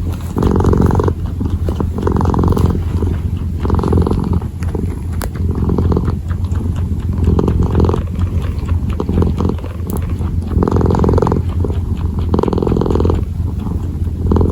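A kitten purring close to the microphone: a steady low rumble that swells with each breath, about every second and a half.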